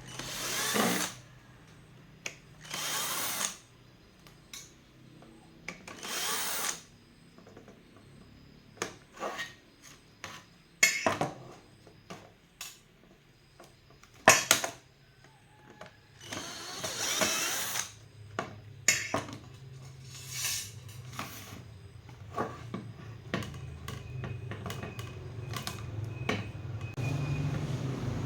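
Small power drill or electric screwdriver run in several short bursts of about a second each, with sharp clicks and knocks of handling between them; a low hum builds over the last few seconds.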